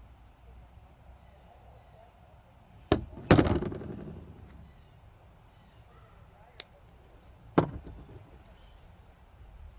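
A few sharp knocks of hard objects being handled or set down: two close together about three seconds in, the second the loudest with a short ringing tail, a light click later, then one more knock.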